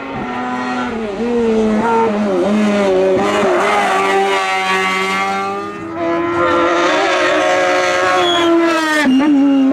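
Race car engine at high revs, its note dipping and climbing several times as the driver lifts and accelerates. There is a sharp crack about nine seconds in, after which the pitch drops as with an upshift.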